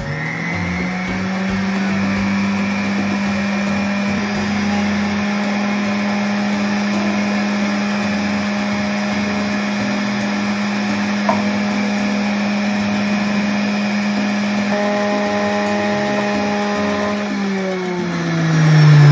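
Electric centrifugal juicer motor running at a steady high speed, picking up speed just after the start. Near the end it slows down, its pitch falling.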